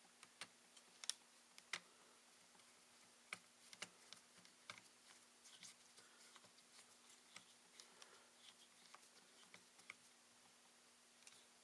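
Irregular light clicks and taps, a few louder ones in the first two seconds, as small parts of a ThinkPad T61 laptop are handled and fitted during reassembly.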